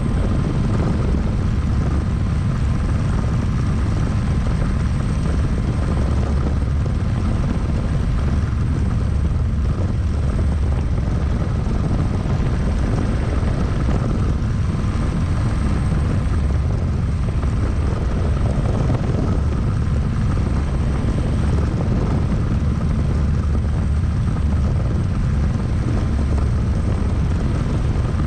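Single-seat turbine-powered experimental helicopter (Eagle R&D design) in flight, heard from inside its cockpit: a steady heavy rotor and engine drone with a thin steady high whine over it.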